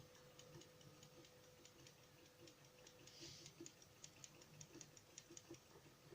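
Faint ticking, several ticks a second, from a homemade spinner motor's reed switch clicking open and shut as the magnet passes and the coil is pulsed, over a faint steady hum.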